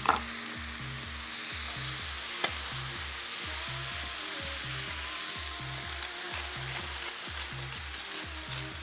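Sliced onions and chopped tomatoes sizzling in a hot non-stick frying pan while a spoon stirs them, with one sharp click about two and a half seconds in. Soft background music with a steady beat runs underneath.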